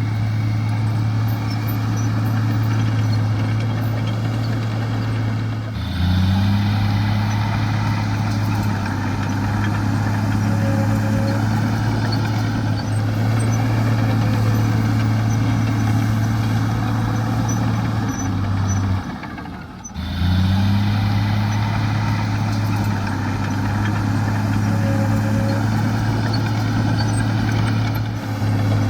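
Heavy diesel earthmoving machinery engine running steadily under load, a deep, even drone. It breaks off abruptly about six seconds in and again near twenty seconds, then resumes at the same pitch.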